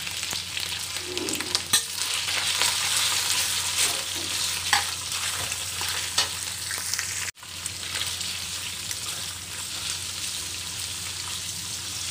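Sliced pork, shrimp and garlic sizzling in oil in a stainless steel wok, with a metal spatula scraping and tapping against the pan as they are stir-fried. The sound drops out for an instant about seven seconds in.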